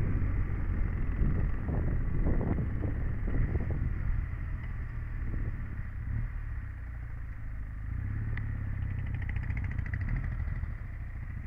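Royal Enfield single-cylinder motorcycle engine running at low revs, heard from the bike itself, getting quieter as the bike slows down. There are a few soft knocks about two seconds in.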